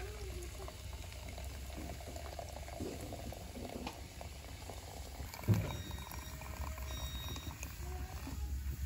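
Hot water pouring in a thin stream from a large soot-blackened metal kettle into a small metal teapot, bubbling as it fills, with one sharp knock about halfway through.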